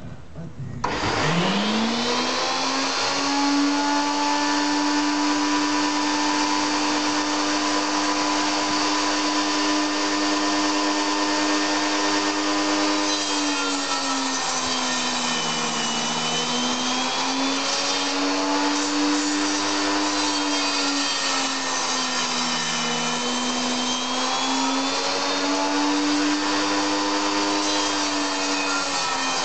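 Schwarzbau TS250A table saw switched on: the motor runs up to speed with a rising whine about a second in, then runs steadily. Its pitch sags three times as the blade cuts through blocks of wood, the last near the end, and recovers between cuts.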